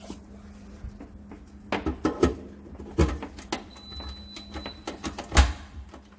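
A few sharp plastic clicks and knocks as a dishwasher's three-prong plug is handled and pushed into the wall socket, the loudest about five and a half seconds in, over a steady low hum.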